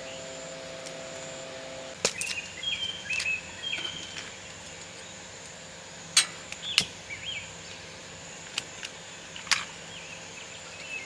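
Sharp clicks and taps as a mosquito coil is separated and set on its metal holder on a metal camp table, with birds chirping and a steady high insect whine. A low electric-fan hum stops about two seconds in.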